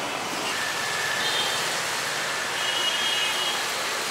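Heavy tropical squall rain pouring steadily, with a few faint short high beeps in the middle.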